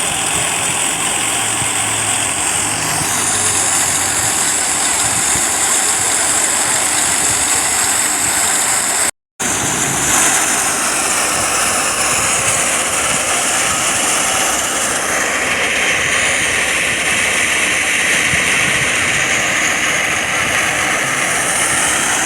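Tractor-driven wheat thresher running steadily alongside the Massey Ferguson 240's three-cylinder diesel engine: a loud, continuous mechanical din with a strong hiss. It drops out briefly about nine seconds in, then carries on unchanged.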